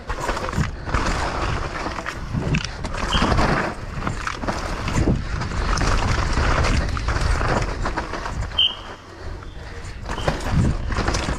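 Downhill mountain bike ridden fast over loose, slick dirt: wind rushing over the helmet-camera microphone, tyres scrabbling over the dirt, and the bike rattling, with frequent knocks as it hits bumps and roots.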